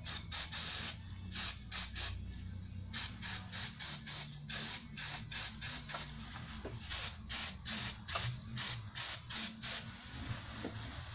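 Aerosol brake cleaner sprayed in many short hissing bursts, about three or four a second, rinsing petrol off a rusty drum brake backing plate. A low steady hum runs underneath.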